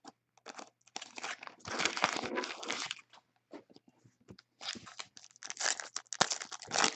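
Card pack wrappers and packaging crinkling and rustling as they are handled, in irregular bursts with the longest run about two seconds in.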